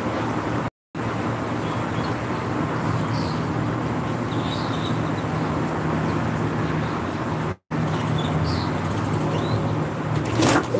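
Steady engine and road hum heard inside a vehicle's cabin. The sound cuts out completely twice for a split second, and a few clicks come near the end.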